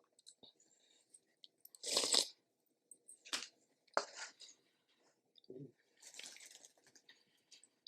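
Close-miked eating: a few short crunchy bites and chewing, the loudest crunch about two seconds in, with a brief low thud or swallow later.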